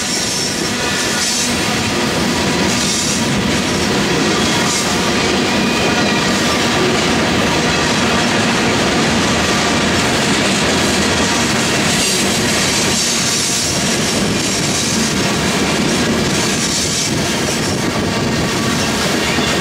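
Covered hopper cars of a BNSF grain train rolling past: a steady rumble of wheels on rail with clickety-clack over the joints and a faint thin squeal of wheels on the curve.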